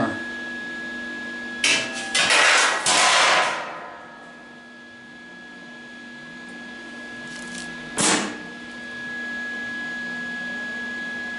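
Welder arc crackling in a noisy burst of about two seconds starting near two seconds in, then a short burst near eight seconds: test welds on thinner scrap sheet steel with the welder turned down. A steady high tone runs underneath.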